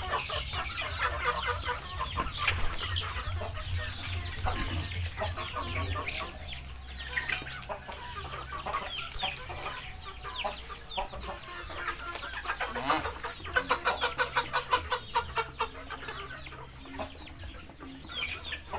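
Chickens calling: a steady stream of short, high, falling peeps and clucks. About two-thirds of the way through comes a quick string of sharp clicks lasting a couple of seconds.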